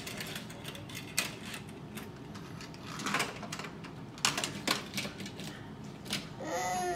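Small die-cast toy cars clicking and clattering as they are picked up and set down on a play table, in a handful of separate sharp clicks.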